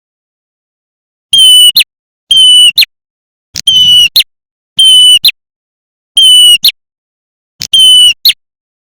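Looped lure recording of a prenjak merah (red-headed prenjak) call: six loud half-second calls, about one a second, each a harsh, ringing note ending in a quick upward flick. The first call comes about a second in.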